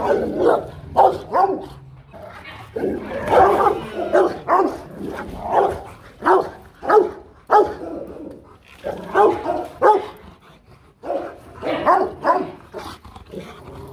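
Rottweiler barking repeatedly in quick runs of short barks, with brief pauses between runs.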